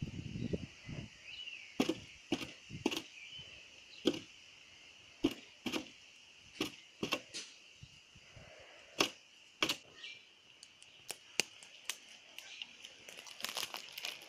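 Hen pecking at a polystyrene foam box: sharp, irregular taps and cracks of beak on foam, about one a second, coming closer together near the end.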